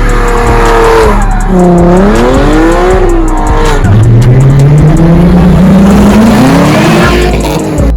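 Car engine revving hard, its pitch swinging up and down, then climbing steadily for about three seconds as the car accelerates, with tyre squeal.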